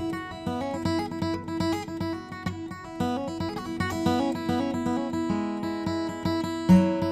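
Background music: an acoustic guitar picking a steady run of plucked notes, with a louder low note near the end.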